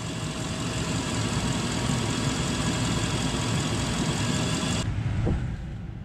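Chevrolet Tahoe engine idling steadily with the AC on high while refrigerant is charged into the low side; the AC compressor is just starting to kick on as system pressure builds. About five seconds in, the sound turns duller and quieter.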